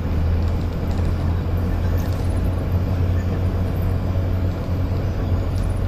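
Cabin noise inside an OTOKAR Navigo T bus under way: a steady low engine hum mixed with road and tyre noise.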